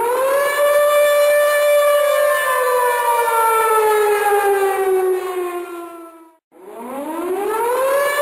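Air-raid siren wailing: it reaches its top pitch about half a second in, holds, then slides slowly down. About six seconds in it cuts off and at once winds up again, reaching its top near the end.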